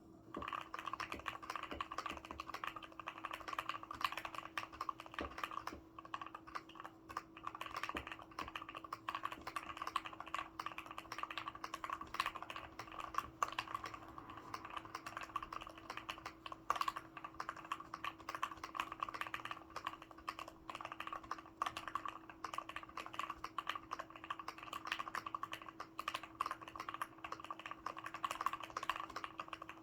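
Continuous fast typing on a Keychron Q2 mechanical keyboard with lubed Gateron Black Ink linear switches, its case dampened with a tape-modded PCB and bubble wrap, and GMK-style keycaps; dense keystrokes with an occasional louder stroke such as the spacebar. A faint steady hum sits under the typing.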